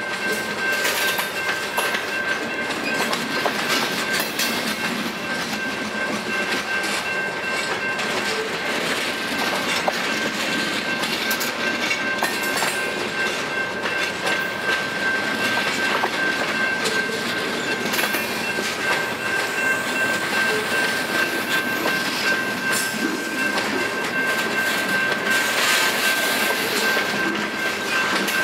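Freight train of lumber flatcars and boxcars rolling past close by: steel wheels clacking and rumbling over the rail joints, with a steady high-pitched squeal.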